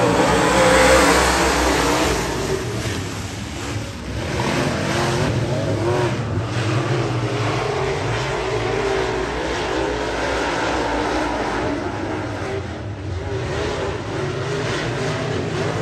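A field of dirt-track race cars running in a heat race: several engines, loudest in the first two seconds, then a steady drone whose pitch keeps rising and falling.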